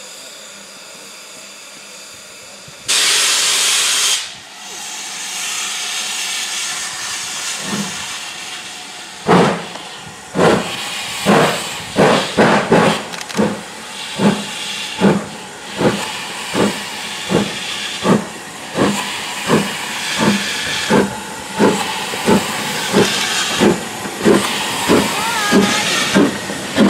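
Ivatt Class 2MT steam locomotive hissing at a stand, with a loud blast of steam lasting about a second, three seconds in. From about eight seconds in it pulls away: exhaust chuffs start and settle to about two a second, over hiss from the open cylinder drain cocks.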